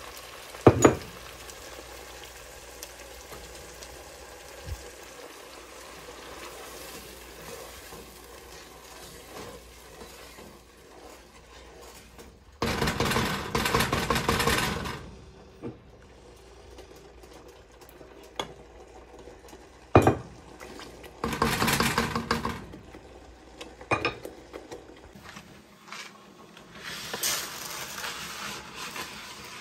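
Tomato sauce sizzling over fried onions and garlic in a pot while a wooden spatula stirs and scrapes against it, with a few sharp knocks of the spatula on the pot and several louder spells of scraping and stirring.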